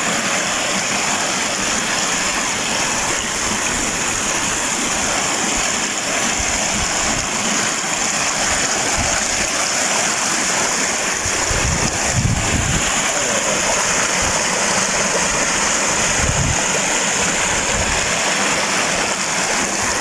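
Shallow stream water rushing and splashing steadily over rock slabs at a waterfall. Brief low rumbles come about halfway through and once more later.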